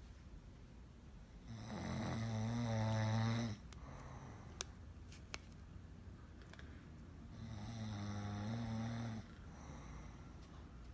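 A person snoring: two long snores about six seconds apart, each lasting about two seconds and cutting off sharply.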